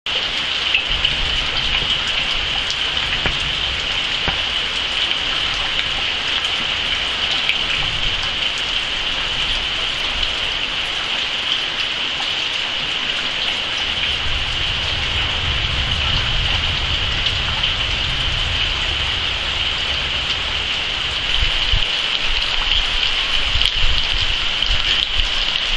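Steady rain falling on foliage and wet ground, a constant hiss.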